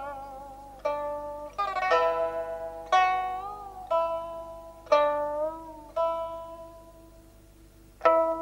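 Background music: a plucked string instrument playing slow single notes and short runs, each ringing and dying away, some bent in pitch. A quiet stretch of fading notes comes just before a fresh pluck near the end.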